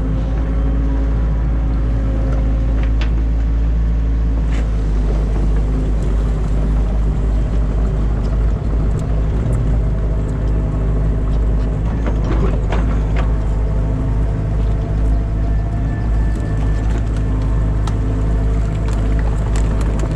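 Excavator's diesel engine running steadily under load, heard from the cab, with the drone and whine of the hydraulics as the bucket works. A few sharp knocks of the bucket on mud and debris.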